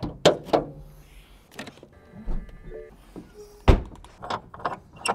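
Hood and body of a BMW E92 M3 being handled: a run of sharp latch clicks and knocks as the hood is released and raised, then one heavy thump about three and a half seconds in.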